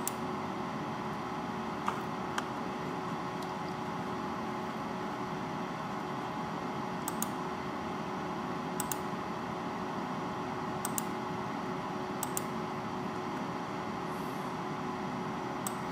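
Stepper motors on a Sherline CNC mill giving a steady hum of several fixed tones while driving the table on a very slow feed move. A few sharp clicks are scattered through it.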